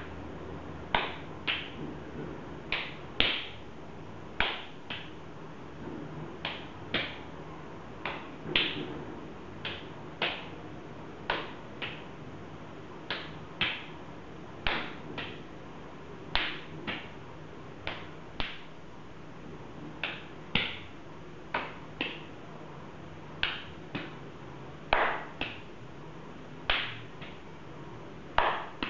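Open-hand slaps to the face as two people strike each other's cheeks in turn: sharp smacks about once or twice a second, often in quick pairs, over a faint steady hum.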